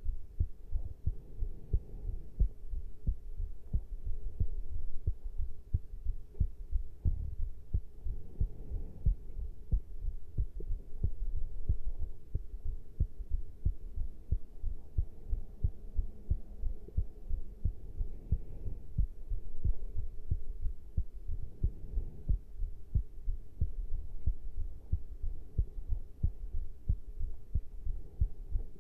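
Human heartbeat recorded close up after caffeine intake: a continuous run of short, low thuds.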